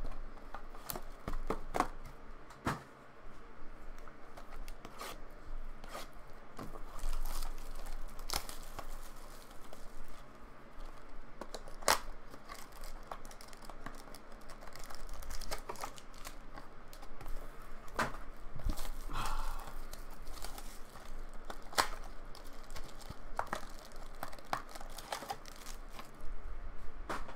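A box of Topps Finest baseball cards being unwrapped and opened by hand: irregular tearing and crinkling of plastic wrap and cardboard, with sharp clicks as the foil packs are pulled out and handled.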